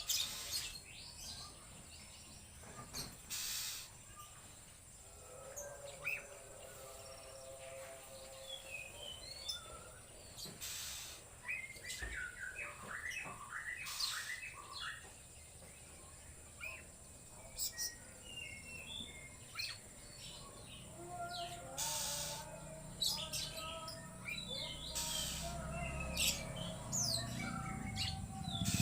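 Young oriental magpie-robin (kacer), just out of its spotted juvenile plumage, singing a fast, varied string of whistles, chirps and clicks in the erratic 'konslet' style.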